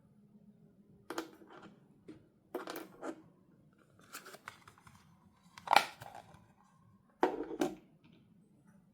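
Doll packaging being handled and opened: a series of short snips, clicks and plastic crinkles in separate bursts, the loudest a sharp click about six seconds in.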